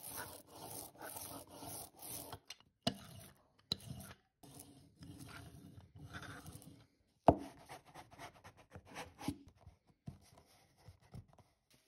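3D-printed ink roller worked through relief ink and over the printing block, a run of short, even rolling strokes, with a few sharp knocks, the loudest about seven seconds in. Near the end, faint light rubbing of a hand over paper on the inked block.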